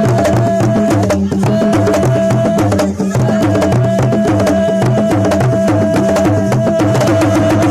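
Idoma drums playing a fast, dense rhythm, with low pitched drum notes changing from stroke to stroke, under one long steady high note.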